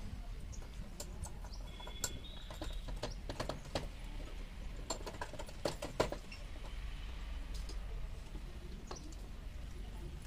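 Scattered light clicks and taps from hand work on electrical wiring, over a steady low hum, with a brief high chirp about two seconds in.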